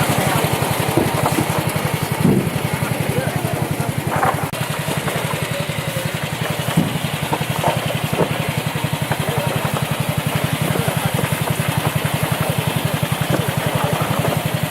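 Engine running steadily with an even low throb.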